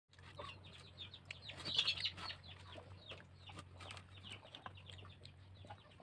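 Chickens clucking faintly, in short scattered calls, over a faint steady low hum.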